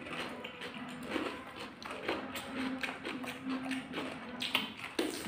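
Two people chewing raw cucumber, with irregular crisp crunches and wet mouth sounds.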